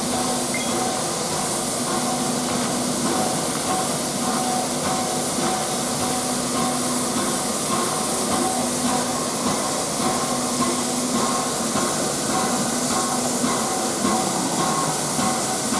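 Steam locomotive 60163 Tornado, a Peppercorn A1 Pacific, standing and letting off a steady, even hiss of steam, with faint steady tones underneath.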